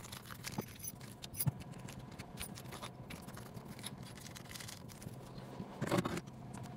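Scissors snipping open a plastic parts package, with light crinkling and small clicks. Just before the end, the aluminium suspension links clink as they are tipped out onto the silicone mat.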